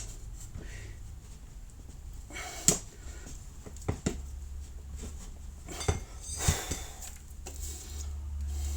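Handling of a brass trumpet and metal repair tools: a handful of sharp, separate metal clinks and knocks, over a low steady hum that grows louder near the end.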